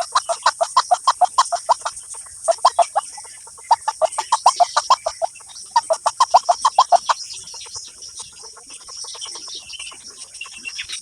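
A bird call: a fast series of clucking notes, about seven a second, repeated in bouts of one to two seconds with short pauses. It dies away for the last few seconds, over a steady high hiss.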